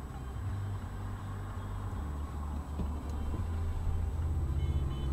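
Car engine idling, heard inside the cabin as a steady low rumble, with faint traffic noise around it.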